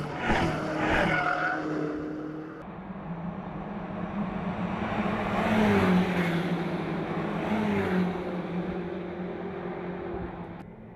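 BMW X6 M's twin-turbo V8 driven hard past on a racetrack, its note falling in pitch as it goes by. A second loud stretch of engine note follows around six to eight seconds in, dropping in pitch twice.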